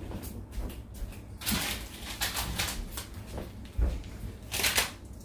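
Rustling and handling noises, as of food packaging being picked up, with a soft knock a little before four seconds in.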